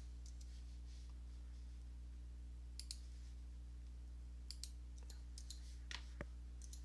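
Computer mouse button clicking a handful of times, mostly in quick pairs, spread through the second half. A steady low electrical hum runs underneath.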